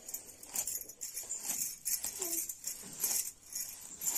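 A plastic comb drawn through long hair in repeated strokes, about two a second, with bangles on the wrists jingling at each stroke.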